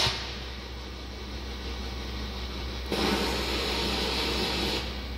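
Steady background hum with a burst of hissing noise that starts about three seconds in and cuts off about two seconds later.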